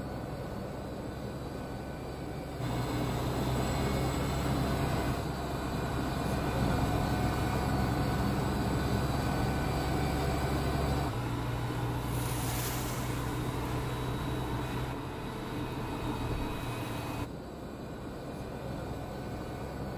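Mercedes-Benz GenH2 fuel-cell truck driving on a mountain road: a steady low hum with road noise, the level jumping up and down abruptly a few times, and a short rush as it passes close about twelve seconds in.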